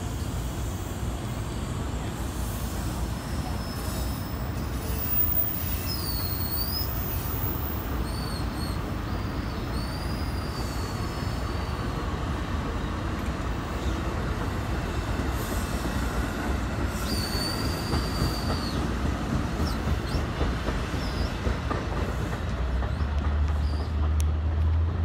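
NJ Transit multilevel coaches passing on the track, wheels rumbling and clacking along the rails, with several short high-pitched wheel squeals. A deeper low hum comes in near the end as the train draws away.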